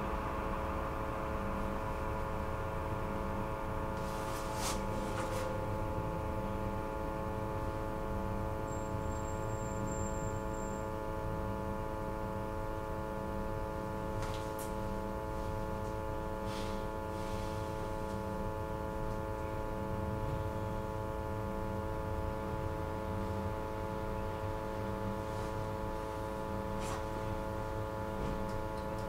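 A tram's electrical equipment humming steadily as the tram stands still: a chord of steady tones over a soft low pulsing, with a few faint clicks.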